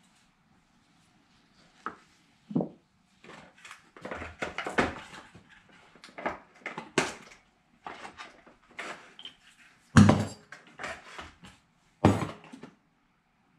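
Hand tools and small metal parts clinking and knocking against a 727 TorqueFlite transmission case while the shifter linkage seal is changed by hand. Irregular taps and clanks start about two seconds in, with the sharpest knocks about ten and twelve seconds in.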